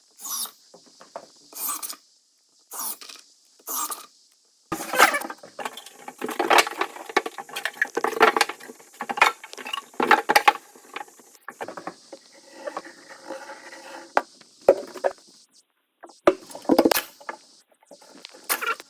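Irregular scraping, knocking and clicking of carpentry work on wood: short separate bursts at first, then denser scraping with sharp clicks.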